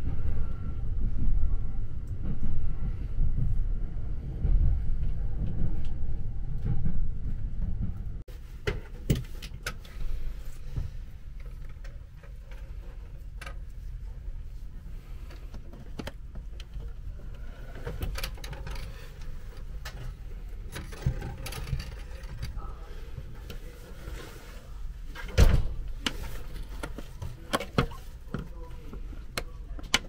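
Interior of a JR East double-deck Green Car: a steady low rumble of the train running, which cuts off abruptly after about eight seconds. A quieter cabin follows, with scattered clicks and knocks and one louder thump near the end.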